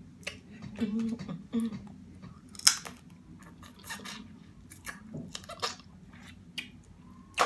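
Close-miked chewing and wet mouth smacking while eating seafood boil, with irregular clicks and snaps and one loud sharp crack about three seconds in.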